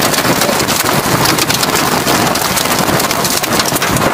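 Jet blast from a Boeing 737's engines at takeoff thrust: a loud, steady roar of rushing air buffeting the microphone.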